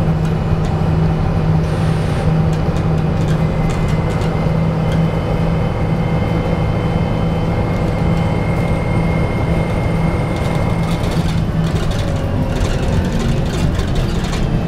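Volvo B7TL double-decker bus heard from inside the upper deck while driving: a steady drone from its Volvo six-cylinder diesel engine and drivetrain. A thin high whine runs through the middle, and interior rattles pick up near the end.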